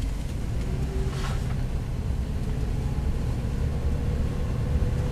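Steady low rumble of a car's engine and road noise heard from inside the cabin while driving slowly.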